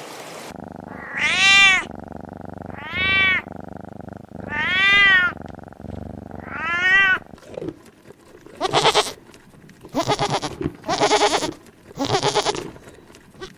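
Cat meows played as a sound effect: four rising-then-falling meows about a second and a half apart, followed by four shorter, rougher calls.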